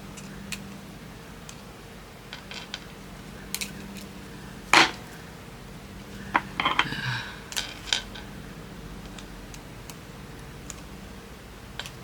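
Small metal clicks and clinks of jewelry pliers working a jump ring and charm parts, with one sharp click about five seconds in and a quick cluster of clinks a second or two later.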